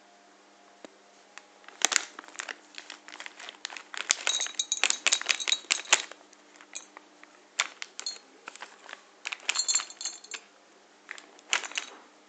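Dry cat treats shaken out of a foil bag, clattering into a ceramic bowl, with the bag crinkling. A dense run of rapid clicks lasts about four seconds, followed by a few shorter rattling bursts.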